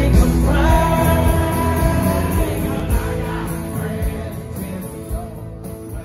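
Music with a singer, fading down steadily over the last couple of seconds.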